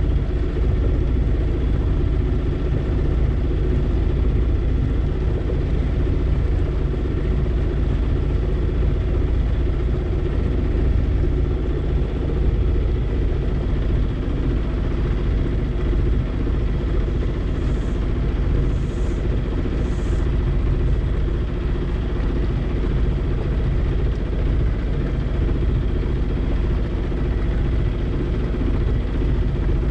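A C&C 30 sailboat's inboard engine running steadily under way, a constant low drone with an even hum.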